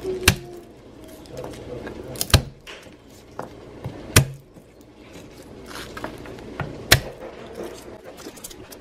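Kitchen knife slicing garlic cloves on a wooden cutting board: irregular sharp knocks as the blade hits the board, four of them loud, with fainter ticks between.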